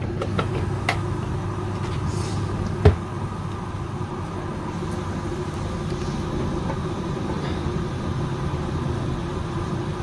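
Front-loading washing machine running a quick wash, a steady low hum as the drum turns the laundry. A single sharp knock about three seconds in.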